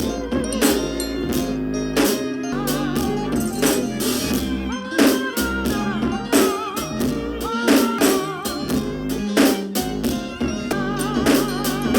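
Background music with drums, guitar and a wavering vocal or lead melody line over a regular beat.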